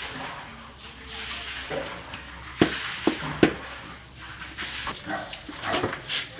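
Water splashing and running in a plastic basin while a kitchen knife cuts a large frog open, with three sharp snaps of the blade about two and a half to three and a half seconds in.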